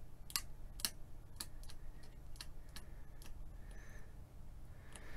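Rotary selector switch on a Marconi TF2414A counter/timer being turned by hand, giving about ten sharp detent clicks at an uneven pace that stop a little past three seconds in.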